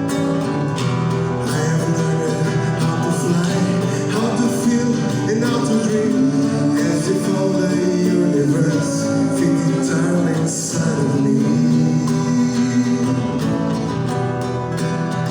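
A live song with acoustic guitar accompaniment and singing.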